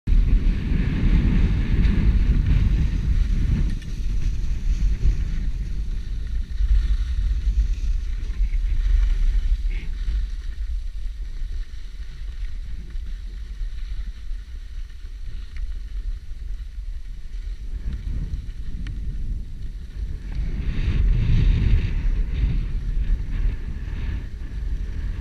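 Wind buffeting the camera's microphone as a skier moves downhill, with the hiss of skis sliding over groomed snow. It is louder in the first few seconds and again near the end, and quieter in between.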